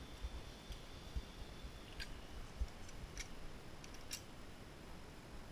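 Three faint sharp clicks about a second apart, over scattered low knocks and rumble: zipline harness gear clinking and a helmet-mounted camera being jostled.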